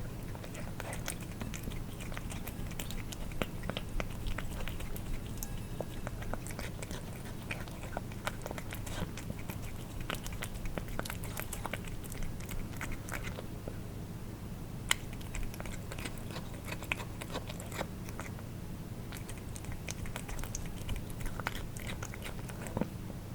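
Cats eating wet food: a steady run of irregular wet smacking, licking and chewing clicks, with one sharper click about fifteen seconds in, over a low steady hum.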